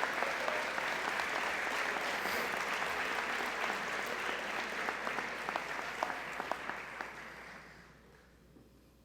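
An audience applauding in a large hall, steady at first, then thinning to scattered claps and dying away about eight seconds in.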